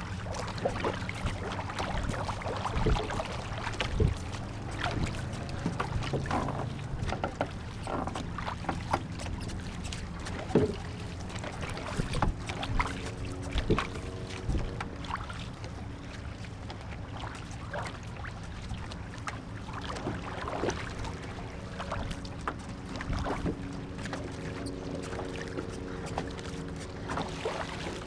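Paddles of a war canoe crew stroking through the water, with irregular splashes and sharp knocks of paddles against the hull.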